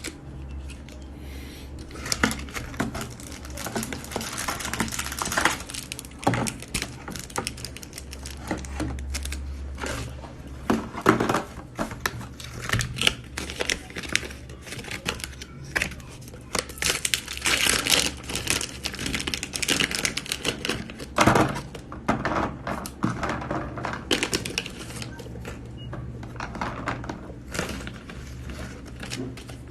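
Plastic food packaging crinkling and tearing, with many irregular small clicks and rustles.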